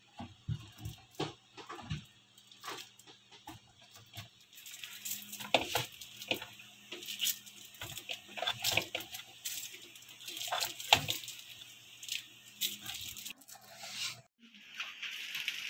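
Juice pouches and cartons being handled and set into a refrigerator's plastic door bin: irregular light knocks and taps of packaging against plastic, with crinkling of the pouches. A faint low hum runs underneath and stops suddenly near the end.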